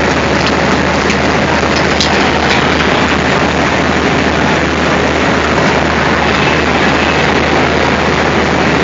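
Diesel locomotive and train running with a steady, loud noise over a low hum, with a few sharp clicks in the first couple of seconds.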